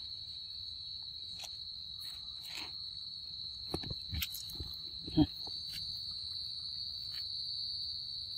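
Insects droning steadily at one high pitch. Around four to five seconds in come a few short knocks, the loudest a low thump about five seconds in.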